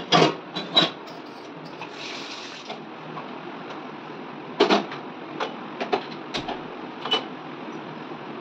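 Steel kitchen utensils and a pressure cooker being handled and set down on a stone counter and gas stove: sharp metal clanks and knocks, a few near the start and a cluster in the second half, over a steady low hiss.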